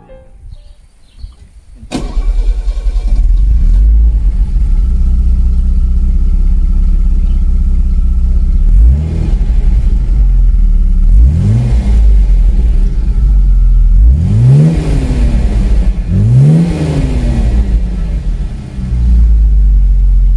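Mercedes-Benz 280 S inline-six engine idling, coming in suddenly about two seconds in. It is blipped four times, the revs rising and falling quickly each time, then settles back to a steady idle.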